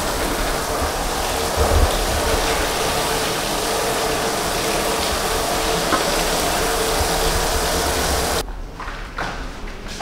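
Water from a shower sprayer running onto a dog's coat in a stainless steel grooming tub, a steady hiss that stops suddenly about eight seconds in.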